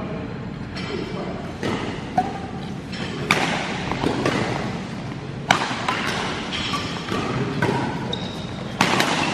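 Badminton rally: rackets striking the shuttlecock in sharp hits a second or two apart, with brief squeaks of shoes on the court floor, echoing in a large hall.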